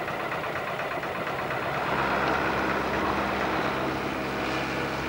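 Tractor engine running steadily, a little stronger from about two seconds in.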